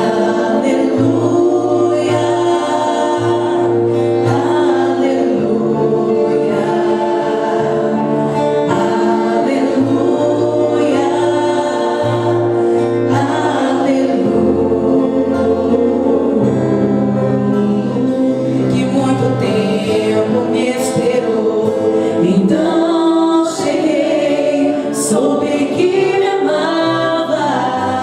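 A vocal group singing in harmony, with held low bass notes under the voices.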